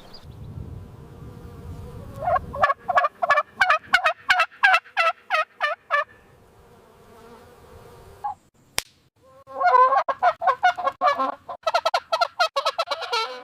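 Domestic fowl calling in rapid, evenly repeated notes: a run of about four seconds, a pause with a single sharp click, then a second, denser run of about four seconds.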